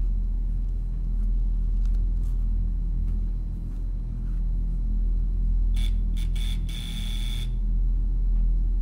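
Steady low rumbling drone with a hum. From about six to seven and a half seconds in, a hiss with a thin high whistle joins it and then stops.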